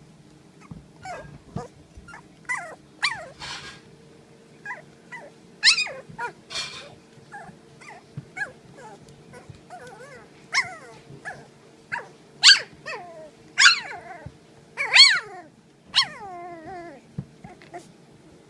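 Four-week-old puppies yipping, whining and growling: many short, high calls, several sliding down in pitch, coming thickest and loudest in the second half. A steady low hum runs underneath.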